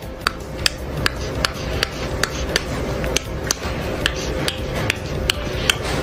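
Rapid repeated kisses, short lip smacks at an even pace of about two or three a second, planted on a bulldog's muzzle.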